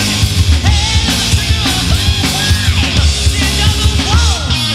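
A hard rock band's demo recording playing loud: electric guitar, bass and drums, with high notes sliding up and down over the top.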